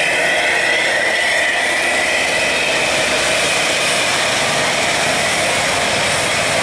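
Large tour bus going by close, its engine running loud and steady with a high whine that falls slowly in pitch.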